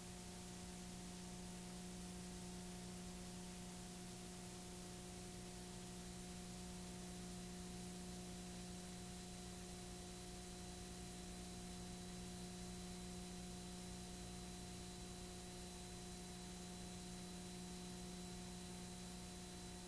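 Faint, steady electrical hum with a constant hiss: the recording's own noise floor, unchanging throughout, with nothing else sounding.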